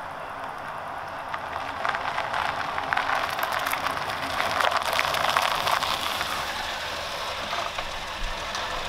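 A car approaching and driving past, its noise building to a peak about halfway through, then easing off.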